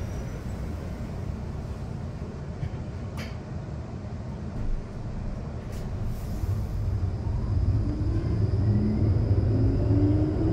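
Inside a Škoda Artic light-rail tram: a low steady rumble with a couple of brief clicks while it stands at a stop. About two-thirds of the way in, the electric traction motors start a rising whine and the sound grows louder as the tram pulls away and gathers speed.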